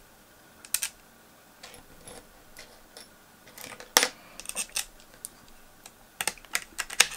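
Small screwdriver and screws clicking and tapping against a graphics card waterblock as the screws are set in place. The clicks are scattered, with a louder tap about four seconds in and a quick run of taps near the end.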